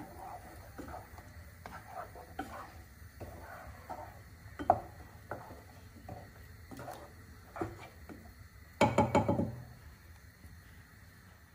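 Wooden spatula stirring a thick curry in a metal saucepan: soft scrapes and scattered knocks against the pan. About nine seconds in comes a quick run of louder knocks on the pan.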